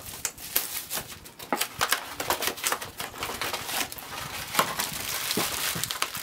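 Foil wrappers crinkling and small cardboard blind boxes being pulled open by hand, a busy, irregular run of crackles and rustles.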